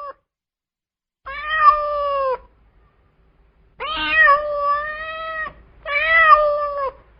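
Domestic cat meowing three times, long drawn-out meows with pauses between them, the second the longest.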